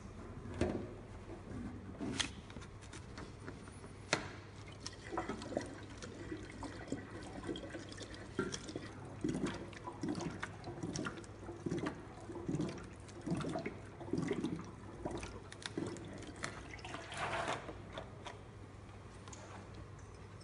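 Cooling water glugging from an inverted plastic jug through a bottle-neck funnel into the reservoir of an S&A CW-6100 water chiller, in a regular run of low gurgles. Sharp clicks and knocks of plastic bottles being handled come before it, about the first five seconds.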